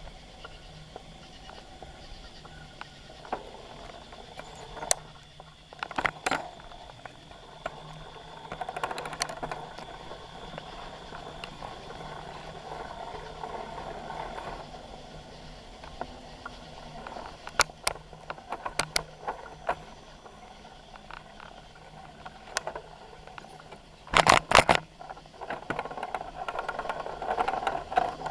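Bicycle rolling over a rough path, heard from a handlebar-mounted camera: a steady rolling noise broken by sharp rattles and clacks over bumps. The loudest burst of rattling comes about 24 seconds in.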